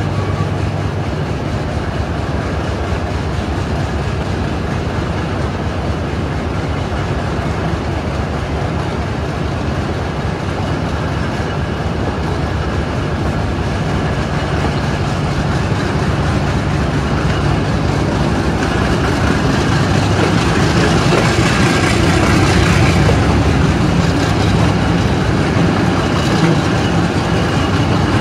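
Passenger train pulling out and gathering speed, heard from an open coach window: the diesel locomotive's engine running steadily ahead, with the running noise of wheels and coaches growing louder and brighter over the second half.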